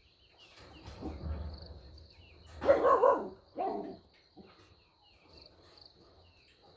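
A dog barking twice, about a second apart, the first bark the louder and longer.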